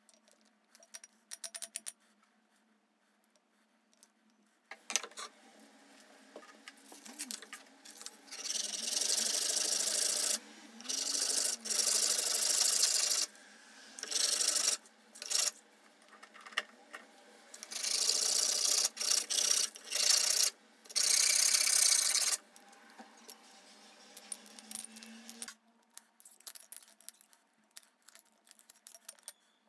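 A small wooden piece rubbed by hand on sandpaper: several runs of scraping strokes, each lasting one to two seconds. Light clicks and taps of the wooden parts come before and after.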